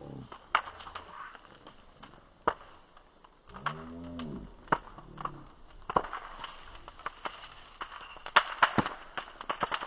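Campfire crackling in slow motion: irregular sharp pops and snaps, growing thicker in the last few seconds. About four seconds in there is a brief pitched sound that rises and falls.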